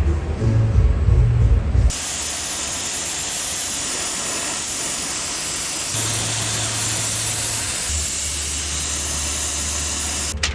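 Steady spraying hiss, as from a paint spray gun or compressed-air nozzle. It starts about two seconds in and cuts off just before the end.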